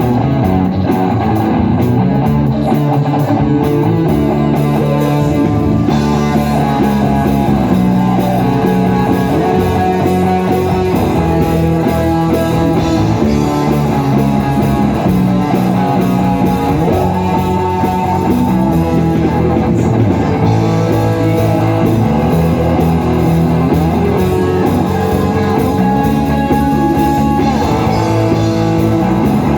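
Live worship band playing an instrumental passage of a praise song, with guitar to the fore over a full band.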